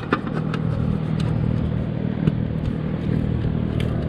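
Light clicks and clatter of a plastic motorcycle cover being fitted back on, several at uneven times, over a steady low engine-like hum.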